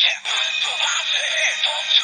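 Kamen Rider Ex-Aid Gashat toy playing its electronic sound effect through its small built-in speaker: a synthesized voice over a game-style music jingle, tinny with no bass.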